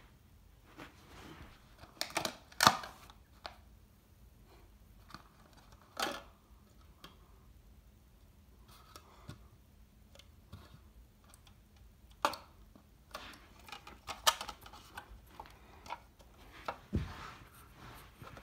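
Plastic party cups handled on carpet: scattered light taps, clicks and rustles of thin plastic as they are picked up, tipped and set down.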